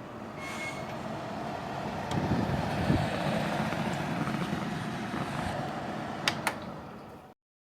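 Road-vehicle rumble that swells and then fades away, with two sharp clicks near the end.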